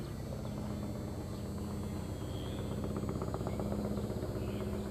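Steady low mechanical hum with an even drone, like an engine idling.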